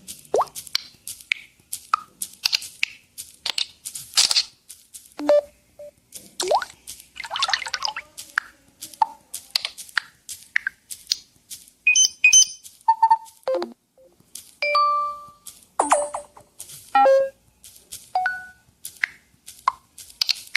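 Samsung Galaxy S25 Ultra notification and system sounds played one after another in quick succession: short blips, pops and chimes at many different pitches, each lasting only a moment.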